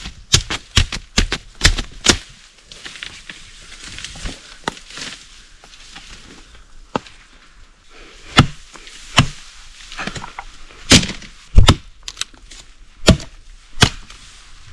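Blade chopping through thin jungle bamboo (malingo cane). A quick run of sharp chops comes in the first two seconds, then a quieter stretch, then single loud chops about a second apart.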